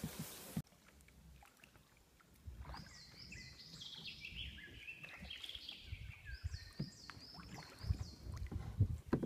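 A kayak paddled over calm river water, with soft low thumps and splashes of the paddle strokes. A songbird sings a repeated high chirping phrase from about two and a half seconds in. At the very start a brief rustling hiss of reeds cuts off suddenly.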